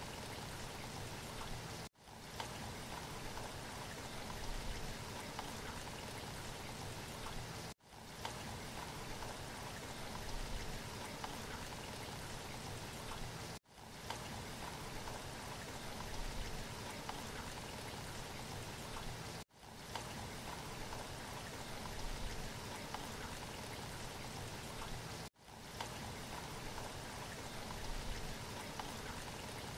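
A steady rain-like hiss on a looping background sound track, which cuts out for a split second and restarts about every six seconds.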